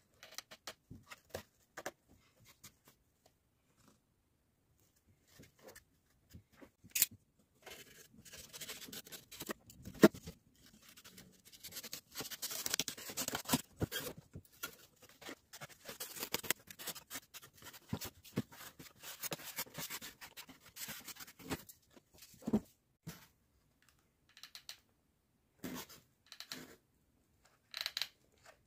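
Handwork on model scenery materials: scattered clicks and taps, then a long stretch of dense scratching and scraping with a sharp knock in the middle, thinning out to a few light taps near the end.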